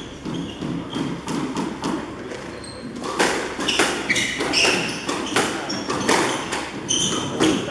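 Squash rally on a wooden-floored court: the ball is struck by the rackets and hits the walls in a string of sharp knocks from about three seconds in, mixed with short high squeaks of shoes on the floor.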